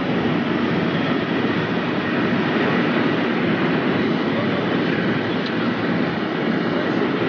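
High-speed electric train running at about 480 km/h, heard from on board as a steady rush of wind and rolling noise.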